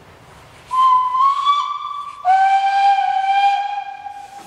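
Steam locomotive whistle sounding two blasts over a soft steam hiss: a higher note of about a second and a half that rises slightly, then straight away a lower note held about two seconds that fades out.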